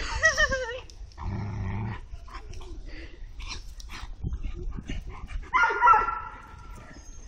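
A standard poodle and an American pit bull terrier play-fighting: high, wavering cries at the start, a low growl about a second in, and a louder high cry near the end, with short knocks in between.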